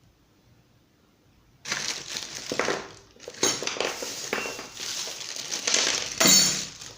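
Plastic packaging crinkling and rustling as small ceiling-fan parts are handled, starting suddenly after a near-silent second and a half and going on in uneven surges.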